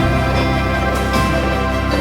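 Background music with sustained, layered tones.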